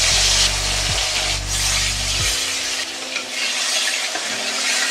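Turmeric-and-salt-coated rohu fish steaks sizzling in hot mustard oil in an aluminium kadai as they are laid in one by one, a steady frying hiss.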